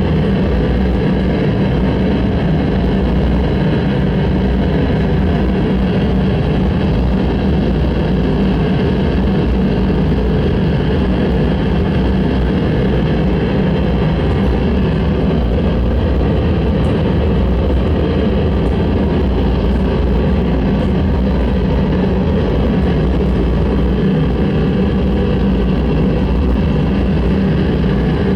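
Harsh noise music: a dense, unbroken wall of loud electronic noise with a steady low drone underneath, barely changing.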